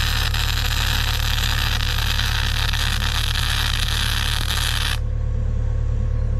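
A steady, loud hiss from a metalworking tool cuts off suddenly about five seconds in, over a constant low hum.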